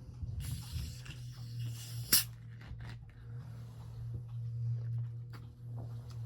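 Vacuum cleaner running in a neighbouring home, heard as a steady low hum. A hiss comes in for a second and a half near the start, and a sharp click about two seconds in is the loudest moment.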